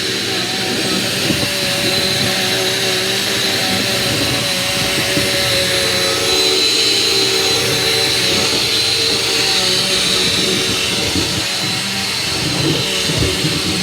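Vacuum cleaner running steadily, its motor giving a constant high whine over a loud airflow rush.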